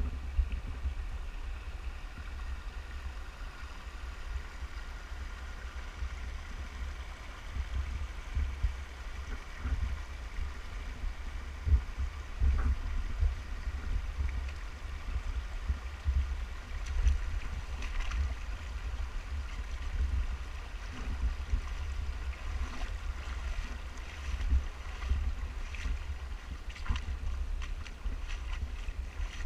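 Wind buffeting the microphone with a low rumble, over a shallow stream running over stones; the water gets more splashy in the second half.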